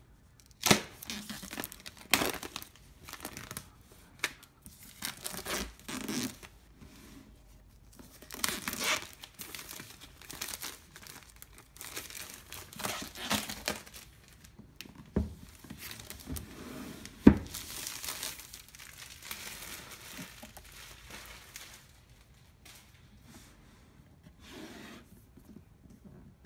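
Clear plastic shrink wrap being torn and peeled off a cardboard box and crumpled, in irregular crinkling bursts. A few sharp clicks cut through, the loudest about two-thirds of the way through.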